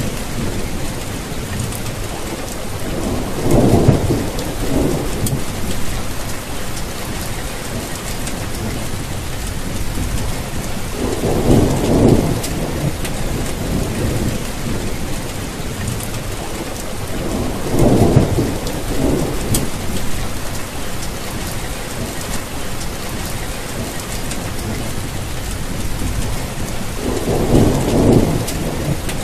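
Steady rain with low rumbles of thunder swelling up four times, each lasting a second or two.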